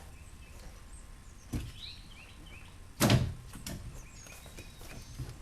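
Knocks and clunks of hands and tools working a speaker loose inside a car door panel, with one loud knock about three seconds in and lighter clicks after it.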